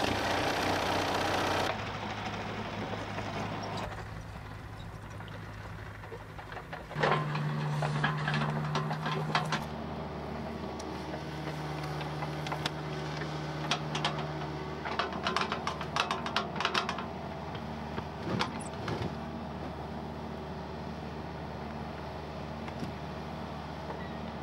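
Kubota mini excavator's diesel engine running steadily, louder for the first second or so, its note shifting about seven seconds in as it works. Over it come several bursts of clatter and knocking from the digging.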